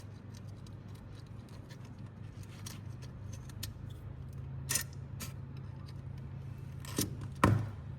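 Small plastic train-kit parts being handled: conical TPU wheels fitted onto an axle, giving scattered light clicks and taps, with a few sharper clicks and the loudest one near the end, over a steady low hum.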